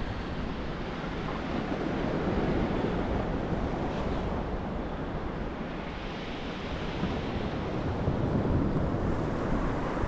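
Black Sea waves washing against the shore and pier, with cold wind rumbling on the microphone. The noise swells and eases slowly.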